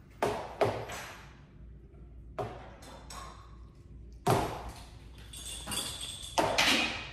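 A series of sharp thumps and knocks, about five in seven seconds, each with a short ringing tail; the loudest come about four seconds in and near the end, when the camera itself is jolted.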